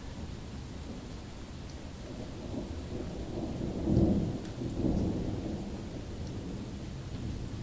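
Thunder rumbling over steady rain. The rumble swells to its loudest about four seconds in, swells again a second later, then dies back to a low rumble.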